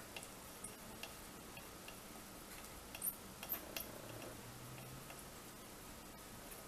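Faint, scattered light clicks and ticks from soldering work on the pins of the main relay's circuit board, with a couple of sharper clicks about three seconds in.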